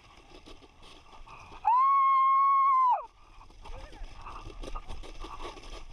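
A person's high-pitched held shriek of excitement, about a second and a half long, sliding up at the start and dropping away at the end. Afterwards, a sled sliding and bumping over icy snow, a rough rumble with uneven knocks.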